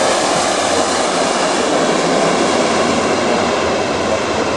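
Airbus A400M's four TP400 turboprop engines and propellers running loud and steady as the aircraft comes in to land.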